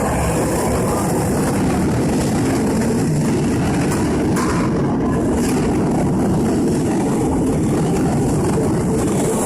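Hanshin Railway electric train running: a steady, loud rumble.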